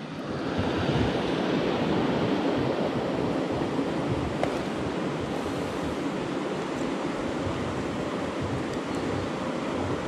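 Steady rush of a mountain river's flowing water, swelling over the first second and then holding even.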